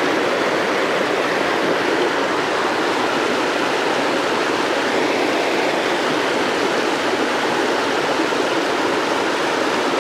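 Rushing water pouring over a dam spillway and through the white-water rapids below it, a steady, loud rush with no letup.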